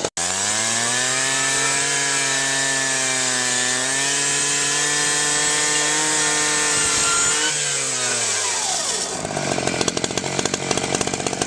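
Two-stroke engine of a gas rotary rescue saw fitted with a Cutters Edge Bullet Blade, running at high revs with a steady whine while it cuts through a metal roof deck. About seven and a half seconds in the pitch falls, and a rough, uneven rasping follows as the blade works through the metal.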